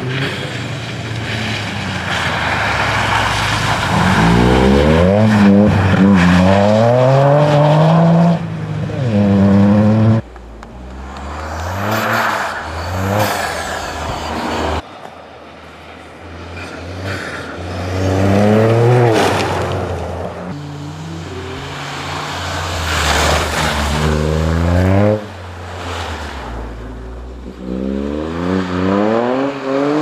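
Toyota GR Yaris rally car's turbocharged three-cylinder engine accelerating hard through the gears, its pitch climbing and dropping with each shift as the car passes. The sound breaks off abruptly several times between passes.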